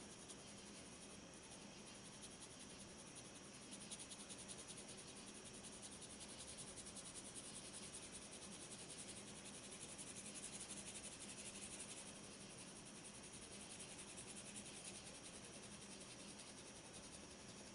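HB graphite pencil lightly shading on sketch paper: a faint, steady scratching of many quick strokes, a little louder in the middle.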